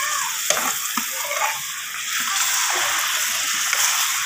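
Water sizzling steadily in a hot pot of roasted semolina and melted sugar, just after it has been poured in, while a steel spoon stirs; the spoon knocks lightly against the pot a couple of times in the first second.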